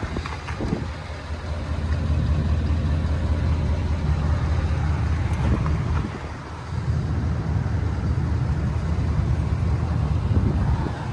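Ford F-350's 6.7 L Power Stroke V8 diesel engine running with a steady low drone. It steps up in level about two seconds in and drops briefly around six seconds in before picking back up.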